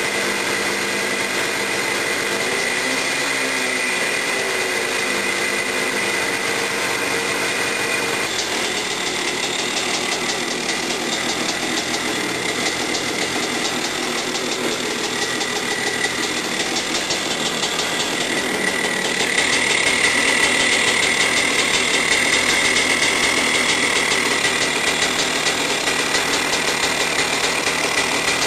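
Husqvarna XC250 two-stroke engine, converted to GM HEI electronic ignition, running steadily. It gets louder about two-thirds of the way through.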